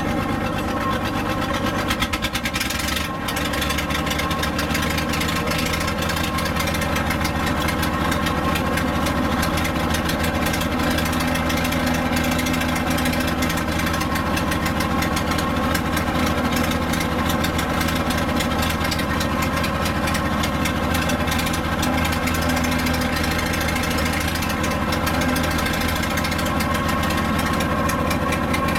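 The straight-piped Continental F186 six-cylinder petrol engine of a Bantam C35 dragline crane, running loud and steady under working load as the crane swings its boom and drags its bucket. There is a short knock about three seconds in.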